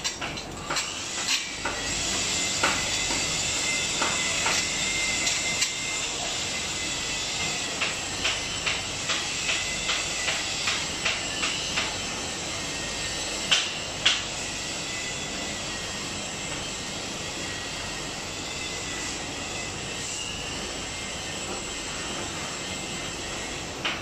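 Sharp metal clicks and taps of a wrench working on a whirlpool bathtub's pump fittings. They come irregularly at first, then at about two a second for several seconds, then two louder knocks, all over a steady background hiss.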